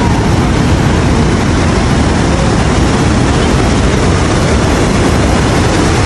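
The Rhine Falls, a large river waterfall, pouring with a loud, steady rush that is deepest in the low end.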